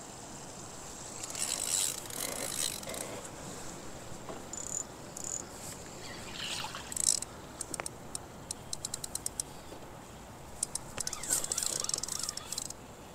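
Penn spinning reel clicking in quick runs of short ticks, about eight a second, mixed with rustling handling noise, with a big fish on the line.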